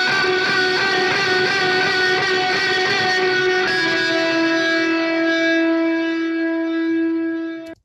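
Film-score electric guitar playing a sustained two-note motif: one note held, then a change to a second note about halfway through, held until it cuts off suddenly near the end. The phrasing of the two notes is meant to leave it unclear whether the figure runs forward, reversed or inverted.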